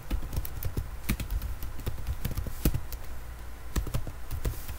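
Typing on a computer keyboard: quick, irregular key clicks as terminal commands are entered, over a steady low hum.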